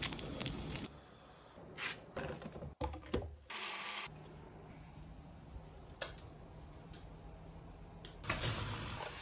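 Light clicks and knocks of kitchen handling around a plastic blender jar, with a short noisy rush about halfway through and a louder one near the end.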